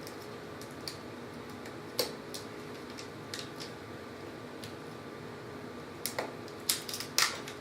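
Hands working on a laptop LCD panel and its taped video ribbon cable connector: light clicks and taps, one sharp click about two seconds in and a cluster of sharper clicks near the end, over a faint steady hum.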